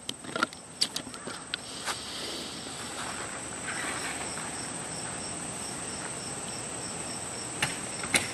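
Crickets chirping: a steady high trill with a regular chirp about three times a second. A few sharp clicks come in the first two seconds and twice more near the end.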